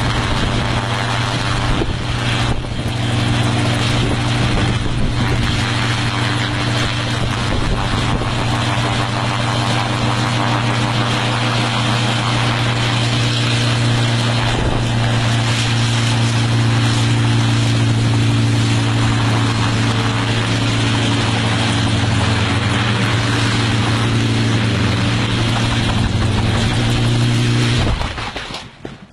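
Homemade helicopter's engine and rotor running at steady high power as it hovers low, a strong low drone with little change in pitch. Near the end the sound falls away sharply as the helicopter tips over and crashes while trying to land.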